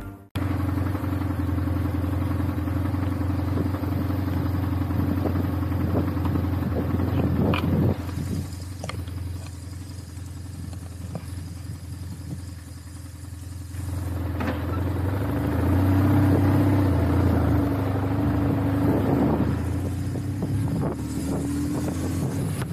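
Motorcycle engine running while riding, a steady low drone that eases off for several seconds partway through, then picks up and grows louder again.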